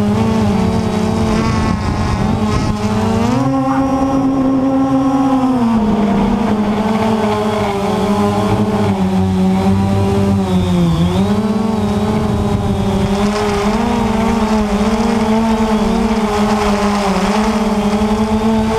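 Quanum Nova quadcopter's motors and propellers buzzing steadily, heard loud from its own onboard camera. The pitch rises about three and a half seconds in, falls back a couple of seconds later, and dips briefly around the middle as the throttle changes while it climbs.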